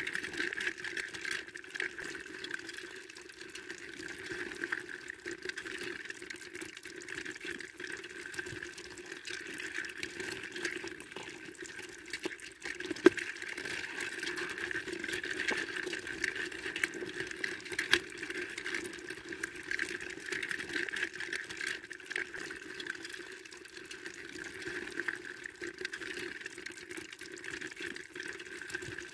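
A bucketful of live crawfish making a continuous fine crackling and clicking in a plastic bucket. Two sharper clicks stand out, about 13 and 18 seconds in.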